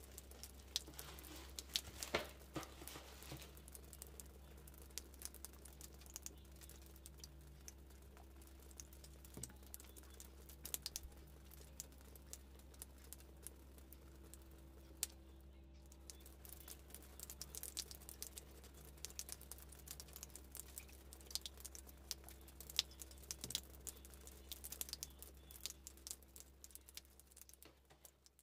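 Quiet handling of a shoebox: tissue paper rustling and crinkling, with scattered light clicks and taps as sneakers are lifted, turned and set back on the cardboard. The crinkling is densest about two seconds in, and a faint steady low hum runs underneath.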